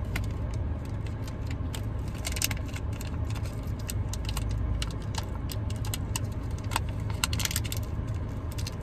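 Irregular small metallic clicks and jangles of a metal fishing jig's hooks and rings as it is worked free by hand. A steady low hum runs underneath.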